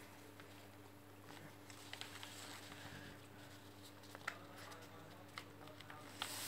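Faint rustling and scratching of a sheet of paper being folded and creased by hand to make a paper airplane, with a few sharper ticks, over a low steady hum.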